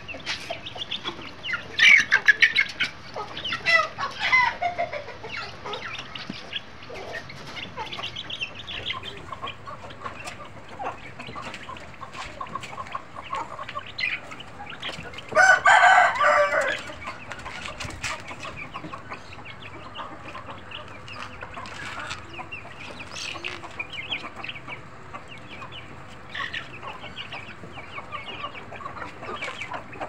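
Kandhari Aseel hen and her half-grown chicks calling while they feed: many short high peeps and clucks, a few louder falling calls early on, and one loud call lasting just over a second about halfway through.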